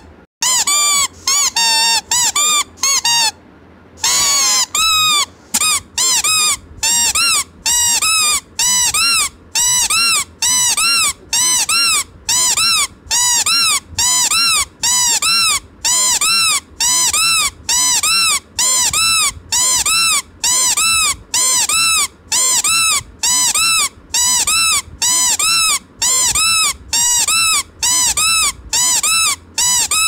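Squeaker in a soft plastic squeeze toy being squeezed over and over, each squeak a short whistle that rises then falls in pitch. The squeaks come unevenly at first, then settle into a steady run of about two a second.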